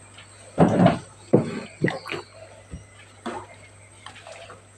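Ladle stirring tom yam soup in a metal pot: liquid sloshing and the ladle scraping and knocking against the pot in several short bursts.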